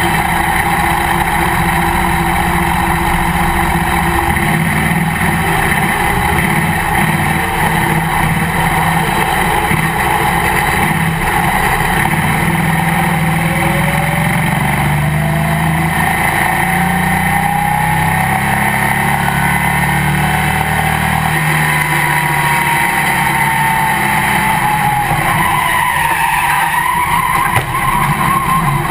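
Legends race car's engine heard from inside the open cockpit, running steadily at moderate speed, with engine pitch slowly rising through the middle and again near the end.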